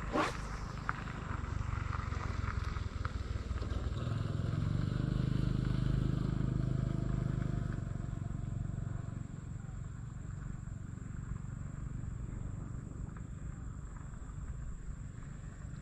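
A motor vehicle's engine passing by: it grows louder to a peak about six seconds in, then fades away.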